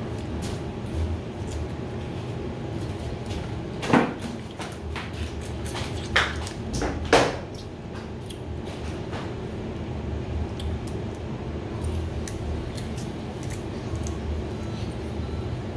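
Crab shells being cracked and picked apart while eating by hand: scattered small clicks and snaps, with three louder cracks about four, six and seven seconds in.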